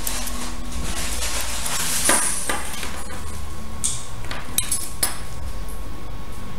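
Metal scissors snipping the end of a belt strap: a few short, sharp cuts and clicks of the blades over a steady low hum.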